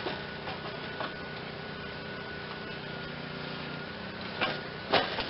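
A few short knocks and clunks as the loosened engine is shifted and lifted in the tractor frame, the loudest pair near the end, over a steady background hum.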